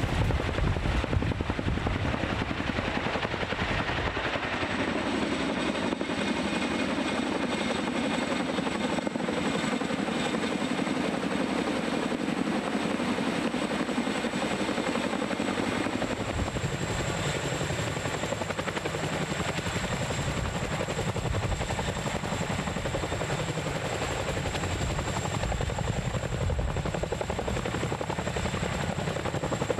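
Boeing CH-47 Chinook tandem-rotor helicopter hovering with an external sling load: steady rotor noise and the whine of its twin turboshaft engines, with a thin high-pitched whine on top. The low rumble grows heavier about halfway through.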